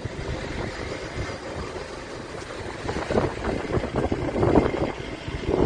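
Rumbling outdoor noise of wind on a phone's microphone, with many irregular crackles. It swells louder about three seconds in and again near the end.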